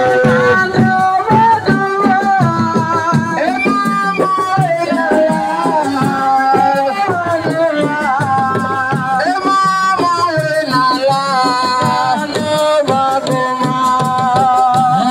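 Senegalese assiko band music: a singer's melody over drums and shaken rattles.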